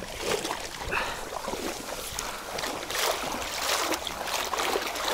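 Irregular water splashing and sloshing in shallow water, coming in several swells.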